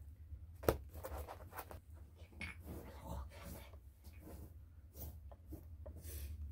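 Indistinct handling sounds: scattered small knocks, scrapes and rustles, with one sharp knock just under a second in, over a low steady hum.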